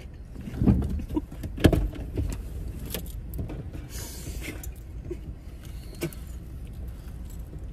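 Steady low rumble of a car heard from inside the cabin. Over it come a few sharp knocks and crunches while chips are being eaten, the loudest two within the first two seconds.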